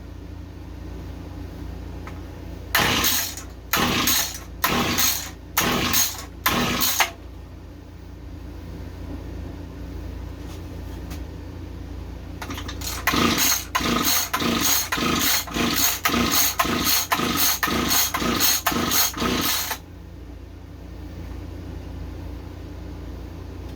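Mantis mini tiller's engine being cranked with its recoil pull-cord without firing: about five pulls a second apart, then a fast run of about fourteen short pulls, roughly two a second, and the engine never catches.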